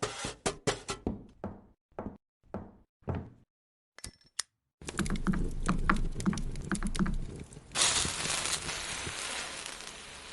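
A run of sharp knocks, quick at first and then about two a second, dying away about three seconds in. From about five seconds a loud, steady noise with a low pulsing sets in, turning into a brighter hiss near eight seconds.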